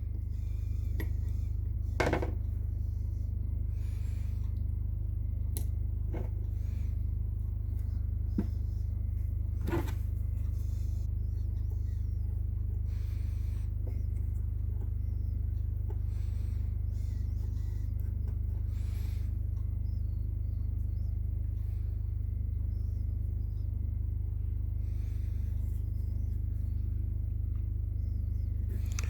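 Small plastic and metal parts of a Mercedes W123 power window switch clicking and rubbing as they are fitted back together by hand: a few sharp clicks and soft scrapes over a steady low hum.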